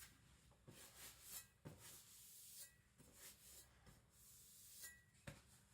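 Faint rubbing with a few soft taps: a Victorinox Chinese cleaver being dried off after washing.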